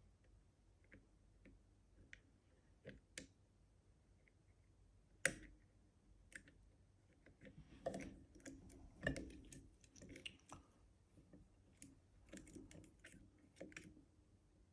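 Faint clicks and light scraping of picking tools working the levers inside an Easi-T lever lock, with one sharper click about five seconds in and clusters of small clicks later on.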